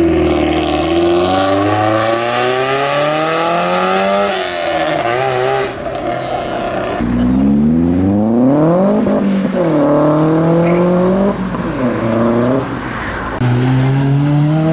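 Modified car engines accelerating hard, revving up and dropping back several times as the cars pull away, the pitch climbing through each rev and falling at each shift or lift.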